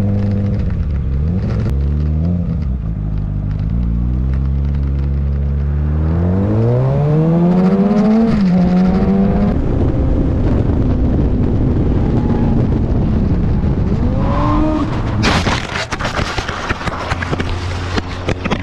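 Sportbike engine running and then pulling hard, its pitch rising twice with a gear shift between, before settling into steady highway-speed noise. About fifteen seconds in, a sudden loud clatter of impacts and scraping as the motorcycle crashes and slides along the asphalt.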